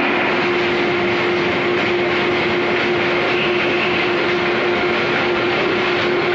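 Corrugated paperboard gantry stacker and its belt conveyor running, carrying board sheets: steady machine noise with a constant hum.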